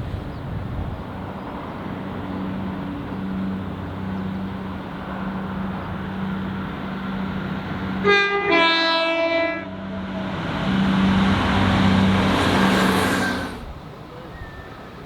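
Diesel train approaching with its engine running steadily, sounding a two-tone horn about eight seconds in, a short high note followed by a longer lower one. It then passes close by with loud wheel and rail noise that drops away suddenly near the end.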